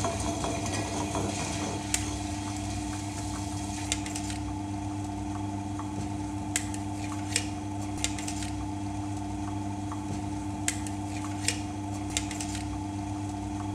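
Table-top wet grinder running steadily, its stone rollers turning in the stainless steel drum with a constant hum as soaked dal is added. About eight sharp metallic clinks at irregular intervals, from a spoon against the steel cup and drum.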